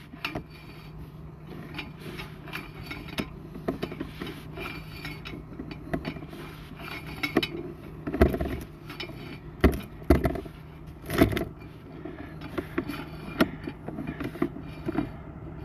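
Sewer inspection camera's push cable being pulled back out of the drain line, scraping and clicking irregularly, with several louder knocks about eight to eleven seconds in, over a steady low hum.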